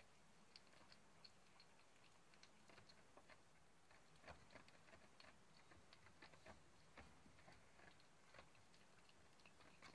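Faint, irregular crunches and clicks of a calico kitten eating dry food from a dish, sparse at first and coming more often from about four seconds in.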